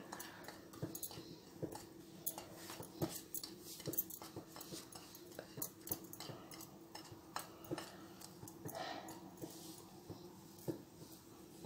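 Fingers stirring and pressing dry flour on a ceramic plate: faint, scattered scratches and small taps, with a low steady hum underneath.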